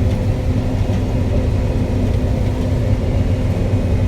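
Combine harvester running steadily: a loud, even low engine drone with a constant hum.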